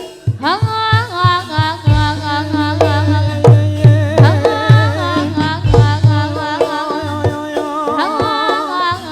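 Jathilan dance accompaniment music: deep drum strokes under a wavering melodic line that slides up into its first note just after the start.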